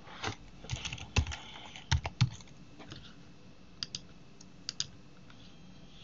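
Typing on a computer keyboard: a quick run of keystrokes over the first couple of seconds, then a few single and paired mouse clicks around the fourth and fifth seconds.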